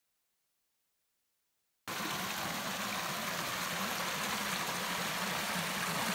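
Complete silence for about the first two seconds, then a creek flowing over rocks cuts in abruptly: a steady, even rush of running water.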